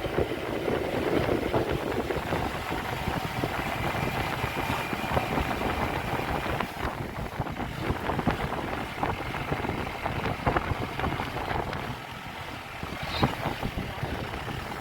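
Motor vehicle running, with steady engine and road noise and wind on the microphone.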